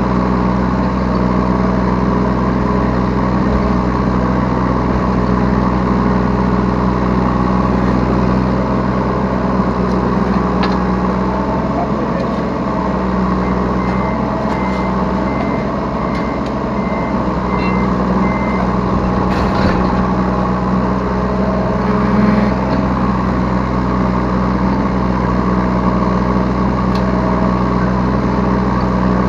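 Yanmar B3 Sigma 3-ton mini excavator's diesel engine running steadily, heard from the operator's seat. Midway, a warning alarm gives a run of short, evenly spaced beeps for about five seconds.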